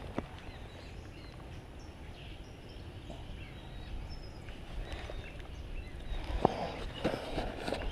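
Outdoor ambience: a steady low rumble of wind on the microphone, with faint bird chirps. Several knocks of handling come near the end.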